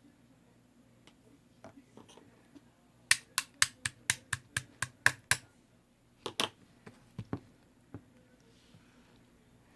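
Slime being pressed and worked by hand, giving a quick run of about ten sharp clicking pops, about four a second, starting about three seconds in, then a few scattered pops.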